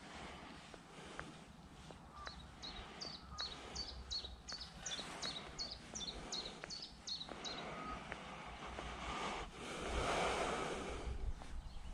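Outdoor ambience with wind rumbling on the microphone. A small bird repeats a short, high, hooked call about fourteen times in quick succession, a couple of times a second. About ten seconds in, a louder rushing swell of noise rises and fades.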